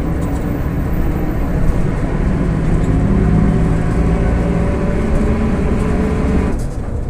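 VolksBus 17-230 OD city bus under way, its MAN D08 34 4.6-litre engine running and its rear differential growling loudly. The whine climbs slowly in pitch, then the higher part of the noise drops away suddenly near the end.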